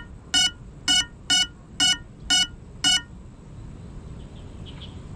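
A crashed FPV drone's locator beeper sounding seven short, high electronic beeps, about two a second, then stopping about three seconds in. Under it is a steady low hiss.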